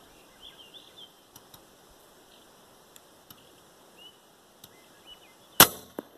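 One shot from a .357 FX Impact MkII PCP air rifle about five and a half seconds in: a sharp crack, followed about half a second later by a fainter thwack of the 68 grain hybrid slug striking a ground squirrel.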